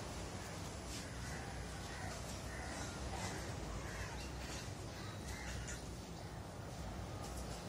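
Birds calling outdoors: short calls repeated every half second or so, over a steady low background rumble.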